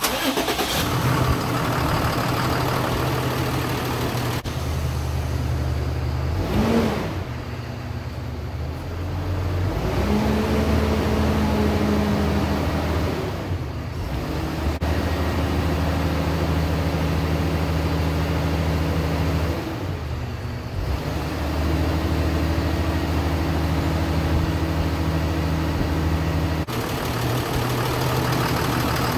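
Cummins ISB 6.7 L inline-six turbo diesel coming on suddenly and then idling steadily. This is its first run after a new EGR valve was fitted.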